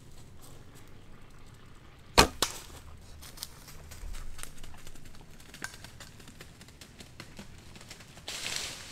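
Recurve bow shot: a sharp crack of the string's release and a second crack about a quarter second later as the arrow strikes. A short rustle follows near the end.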